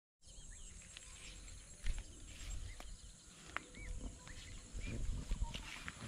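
Birds calling in short, arching chirps, mixed with the low thumps and rustle of footsteps pushing through scrubby vegetation.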